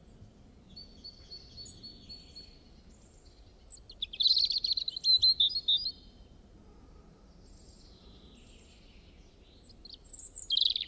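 Small birds chirping and singing: a thin run of notes early, a louder burst of rapid chirps about four to six seconds in, and another short burst near the end, over a faint low background hum.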